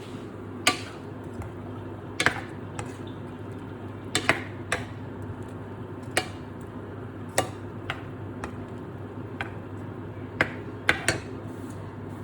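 Kitchen utensils and dishes clinking and knocking, a sharp click every second or two, over a steady low hum.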